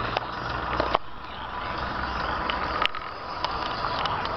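Street and traffic noise with wind on the microphone, heard from a bicycle rolling along a city sidewalk. A few sharp clicks and knocks cut through, the loudest about three seconds in.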